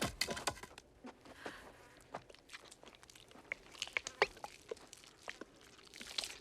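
Wet crunching and irregular sharp clicks from the dead graboid's carcass, opening with a single knock.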